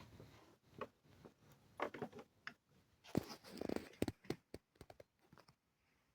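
A few faint, scattered clicks and knocks, irregularly spaced, with a small cluster about three to four seconds in; no motor hum.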